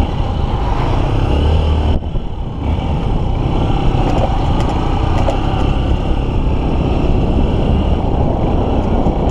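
Honda XR150L's single-cylinder four-stroke engine running as the motorcycle is ridden, heard through a helmet-mounted camera, with heavy low wind rumble on the microphone.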